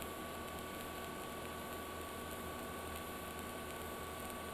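Steady hiss of a TIG welding arc from an Everlast MTS251si during an overhead fillet weld, with a thin steady high whine over it.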